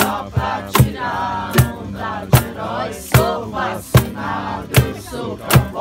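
Small acoustic guitar strummed with a sharp accented stroke about every 0.8 seconds, under voices singing along.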